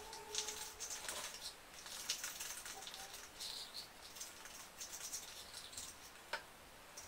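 Spoon stirring thickening slime (vinyl glue setting with boric acid water) in a plastic cup: faint, irregular scraping and small clicks, busier in the first few seconds, with one sharp click about six seconds in.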